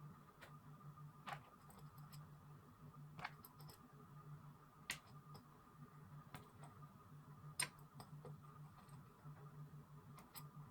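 Faint, sharp clicks and light taps at uneven spacing, about one a second, over a low steady hum.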